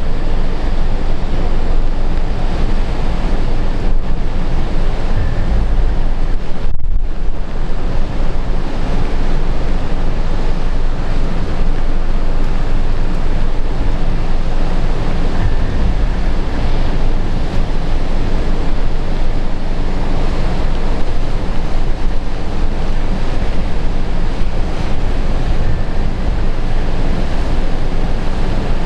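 Heavy typhoon surf pounding the shore in a continuous roar, with strong wind buffeting the microphone. The sound drops out briefly about seven seconds in.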